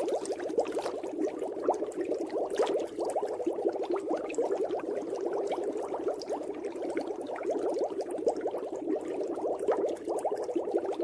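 Water bubbling steadily: a dense stream of many small bubbles, like underwater or aquarium bubbling.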